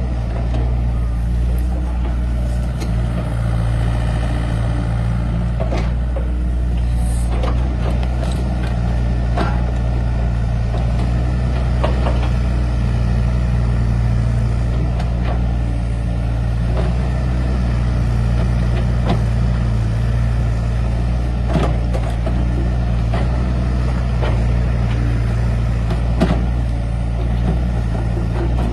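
Excavator's diesel engine running steadily with a low hum, with a scattering of short knocks through it.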